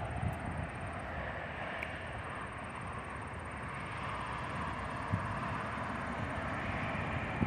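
Distant jet noise from a KLM Airbus A330-300's twin General Electric CF6 turbofans at takeoff power as the airliner climbs out: a steady, even rumble that swells slowly. Light wind buffeting on the microphone.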